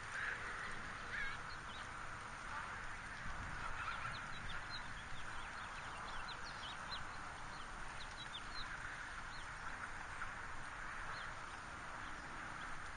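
Waterfowl calling from the water: a faint, steady flock chatter with many short, high calls scattered through it.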